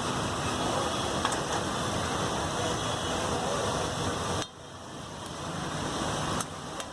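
Eggs and oily masala sizzling on a large flat iron griddle: a steady frying hiss. It drops suddenly about four and a half seconds in, then builds up again.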